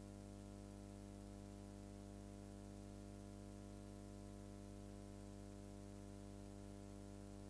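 Near silence: a faint, steady electrical hum with its overtones over light hiss, unchanging throughout.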